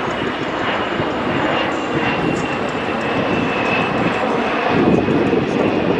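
Boeing KC-135 Stratotanker's four CFM F108 turbofans on a low, slow flyby: a steady jet roar with a high whine that slowly drops in pitch, growing a little louder near the end.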